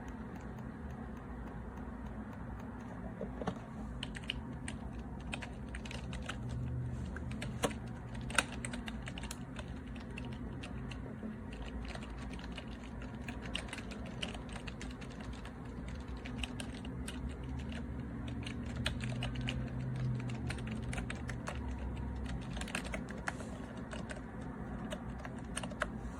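Typing on a RaceGT 2.4G wireless keyboard with round, typewriter-style keycaps: a run of irregular key clicks over a steady low hum.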